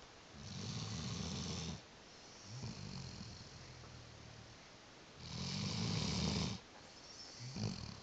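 A sleeping dog snoring: two long, loud snores about four seconds apart, with quieter breaths between and a short, sharp breath near the end.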